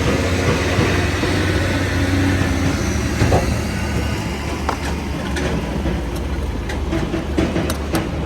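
A steady low engine rumble, with several sharp clicks and knocks in the second half.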